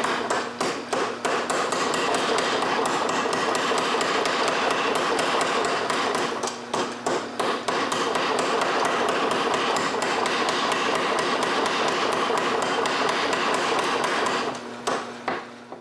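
Hammer blows forging a red-hot 4140 steel rod: a rapid, even run of metallic strikes, broken by short pauses about a second in, midway and near the end.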